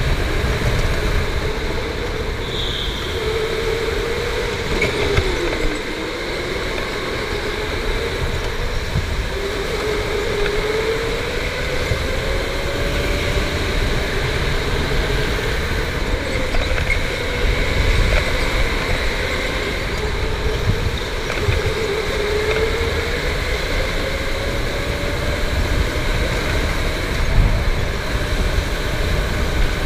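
Electric rental go-kart running at speed: a motor whine that rises and falls in pitch several times, over a steady rumble from the chassis and tyres on the concrete floor.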